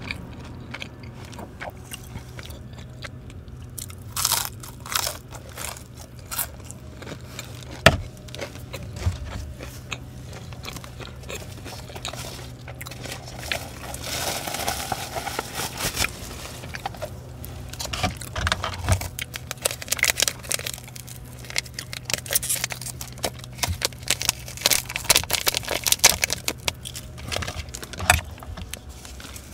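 Close-up crunchy chewing and biting of fried food. Then crackly crinkling of plastic wrap and a paper lid in a dense run of clicks through the second half, as a cup ramen is unwrapped and opened.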